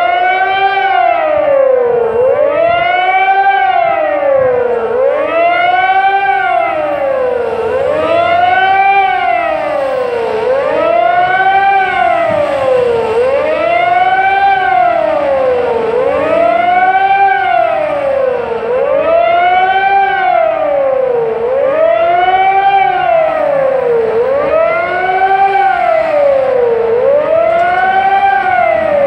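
Civil defence siren wailing, its pitch rising and falling smoothly about every three seconds. It is the nationwide W-Hour siren signal marking the anniversary of the Warsaw Uprising.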